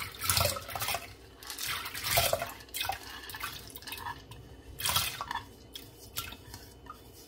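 Wet split pigeon peas (toor dal) and red lentils (masoor dal) tipped from a plastic bowl into water in an aluminium pressure cooker: irregular splashes and plops as handfuls drop in, thinning out toward the end as the last few lentils fall.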